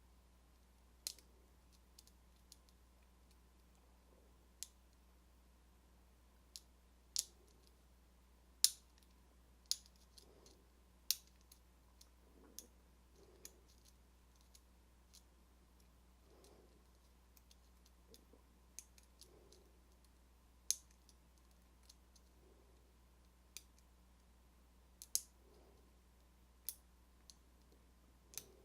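Lock picks working a small Alpha four-pin padlock: faint, irregular sharp metal clicks, one every second or so, as the pins are picked. A steady low electrical hum runs underneath.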